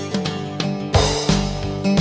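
Background music: plucked guitar over a beat, with low drum thumps coming in about a second in.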